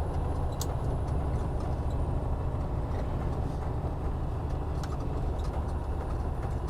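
Semi truck's diesel engine running with the Jake brake (engine compression brake) engaged, a steady low rumble slowing the heavy double-trailer rig on the downgrade. A few light clicks and rattles sit on top of it.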